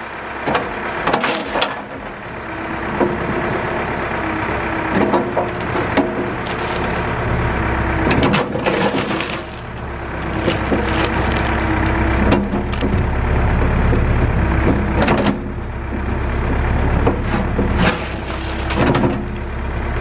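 A diesel New Holland backhoe loader's bucket crushing a MacBook Pro laptop into gravel: repeated cracks, snaps and crunches as the laptop's case and screen break and the stones shift under the bucket. Beneath it the backhoe's engine runs steadily and gets louder in the second half as the bucket bears down.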